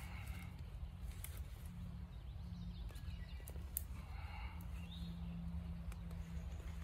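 Ramps (wild leeks) being dug and pulled from forest soil by hand: rustling of the broad leaves and scraping and snapping, with a few sharp clicks. A steady low rumble sits underneath, and birds call faintly now and then.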